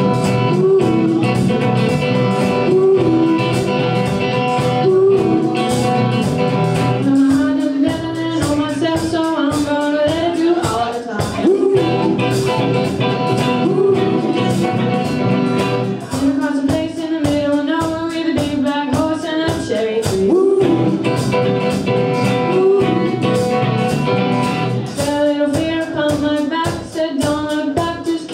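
Small live rock band playing a song: electric guitar, bass guitar and a drum kit keeping a steady beat. A woman's lead vocal, sung by the drummer, comes in and out in phrases.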